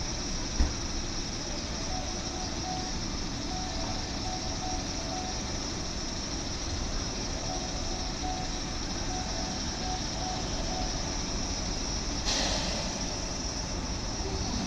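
JR 103-series electric train pulling slowly into the platform, with a steady background rumble. A repeating electronic beeping runs in stretches through the first two-thirds, and a short burst of hiss comes about twelve seconds in.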